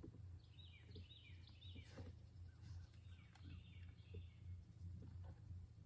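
Faint outdoor quiet with a songbird calling: a quick run of three short descending chirps, then a few more softer ones, over a steady low hum.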